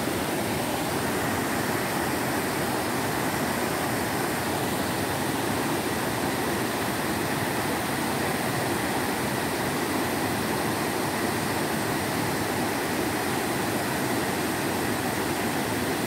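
Steady rush of a waterfall cascading over rock ledges into a pool.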